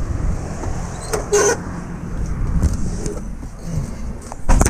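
Car door of a 1997 Honda Accord shutting near the end, cutting off the outdoor rumble and wind noise so the sound turns close and quiet. There is a clunk about a second in.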